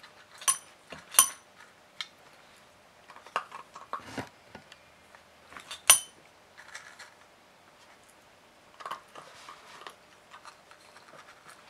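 A small service bell dinged by a puppy's paw, three clear rings: two close together about half a second and a second in, and one near six seconds. Quieter clicks and taps come in between.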